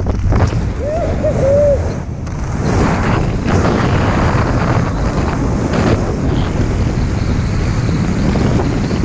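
Wind rushing over the microphone during a descent under an open parachute canopy, a loud, steady buffeting. About a second in, a short wavering tone sounds briefly over it.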